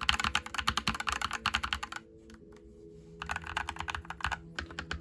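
Typing on a Keychron C1 Pro 8K mechanical keyboard: rapid runs of keystroke clicks, pausing for about a second near the middle before starting again.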